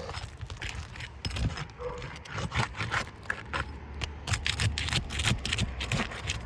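Asphalt roof shingle being pulled and pried up by hand and tool, giving irregular scraping and crackling as it tears.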